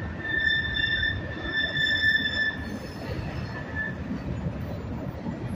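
Freight train rolling past with a steady low rumble, its steel wheels squealing in a high, steady tone that dies away about four seconds in.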